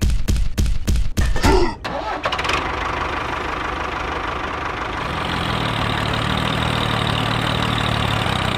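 Tractor engine starting: a quick run of loud chugs over the first two seconds, then it catches and runs steadily. A deeper low drone joins about five seconds in.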